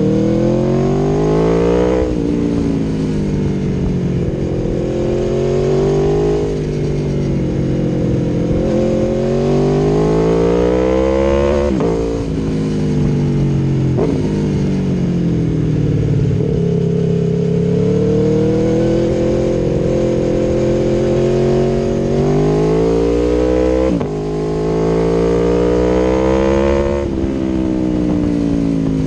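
Aprilia Tuono V4 1100's V4 engine through an Akrapovic exhaust, under way: it revs up and then drops sharply in pitch at each upshift, several times over, with easing off and steady cruising between.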